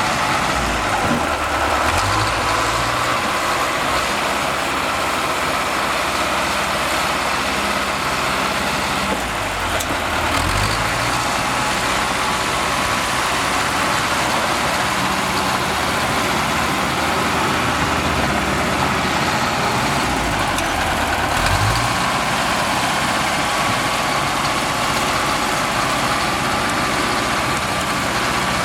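Diesel engine of heavy earthmoving machinery running steadily, its engine note shifting a few times as the load or throttle changes.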